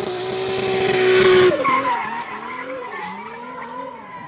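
Drift car held at high, steady revs with its tyres screeching, loudest about a second and a half in; then the screech stops and the engine revs rise and fall several times.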